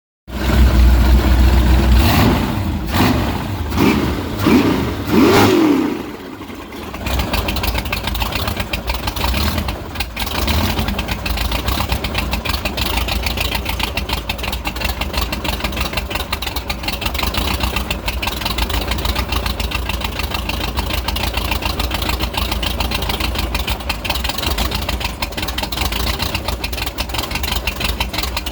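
Engine revved with about five quick throttle snaps in the first six seconds, the revs dipping low before it settles into a rough, uneven idle.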